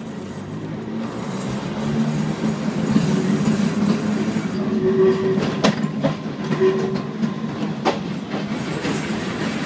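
Glasgow single-deck electric tram under way, its motors humming and wheels running on the rails, growing louder over the first few seconds as it picks up speed. Two sharp clicks come from the running gear, about two seconds apart, in the second half.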